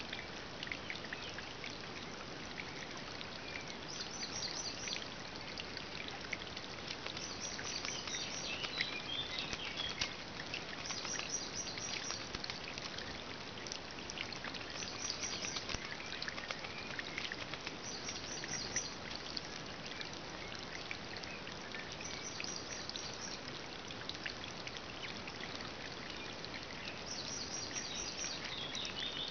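A small songbird singing a short, high trilled phrase about every three to four seconds over a steady background hiss, with brief splashing and pecking clicks as a blackbird bathes in a shallow puddle.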